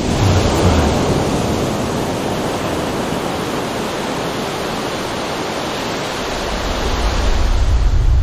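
Steady rushing noise of ocean surf, like waves churning, with no speech. A low drone swells in near the end.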